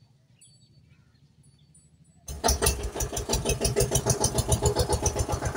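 Faint bird chirps, then about two seconds in a tractor engine starts abruptly and runs with a fast, even chugging beat.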